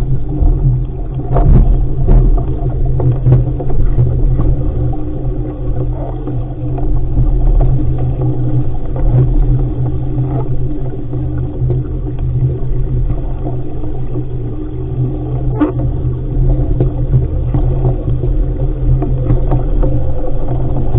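Rushing water and spray along the hull of an RS500 sailing dinghy moving through chop, under a steady low rumble of wind on the microphone. A few sharp knocks or slaps stand out, one about a second and a half in and one near the three-quarter mark.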